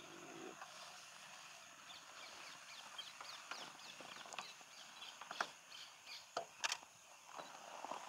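Small birds chirping in quick falling notes over a steady high insect drone, with several sharp clicks in the second half.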